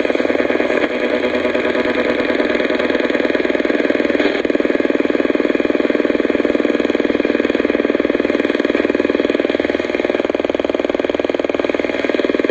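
Radio receiver putting out a loud, steady buzzing interference with a rapid, even pulsing and no programme audible: the radio malfunctioning or being drowned out by interference.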